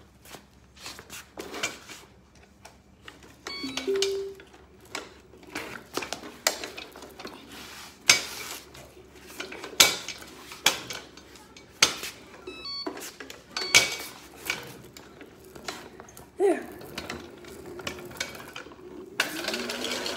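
Metallic clanks and clicks from a hoverboard go-kart attachment as its frame is handled and adjusted, with a short two-note tone about four seconds in. Near the end, the hoverboard's motors start to whir as the kart rolls away.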